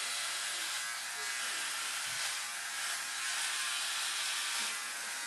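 Philips OneBlade electric shaver buzzing steadily as it cuts stubble through shaving foam, its level swelling slightly with the strokes.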